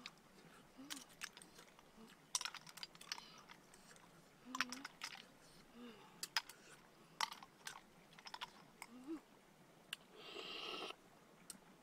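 Cooked river snails being eaten by hand: scattered sharp clicks of the shells being handled and picked at, a few brief low hums, and a hissing suck about ten seconds in as a snail is sucked out of its shell.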